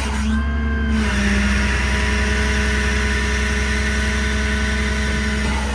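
Cummins diesel running while its hydraulic system drives the outriggers up and down: a steady engine hum, joined about a second in by a loud hissing flow noise that stops near the end, as the outriggers are deployed.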